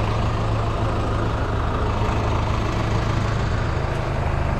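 Heavy diesel engine idling steadily, an even low hum that holds without revving.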